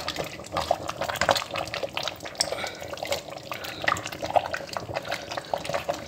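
Soup simmering in a stainless steel pot while it is stirred with a wooden spoon: a steady stream of wet bubbling pops and small clicks.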